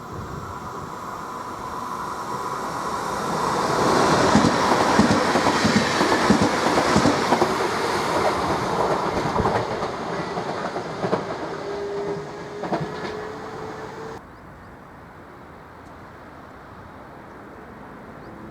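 An electric S-Bahn multiple-unit train passing. Its noise builds to its loudest about four to ten seconds in, with wheels clicking over rail joints, then eases off and cuts out suddenly about fourteen seconds in, leaving quieter background.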